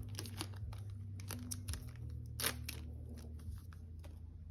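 Trading cards being handled and flicked through, giving light papery clicks and rustles, one sharper snap about two and a half seconds in, over a steady low hum.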